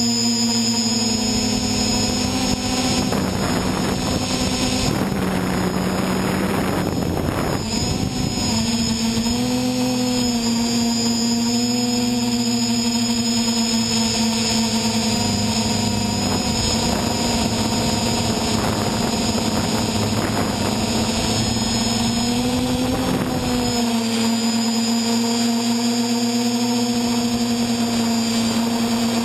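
VC-450 quadcopter's electric motors and propellers whining steadily in flight, heard from on board the craft. The pitch dips and shifts as the throttle changes, about five to eight seconds in and again near the end, with a rush of noise from about three to eight seconds in.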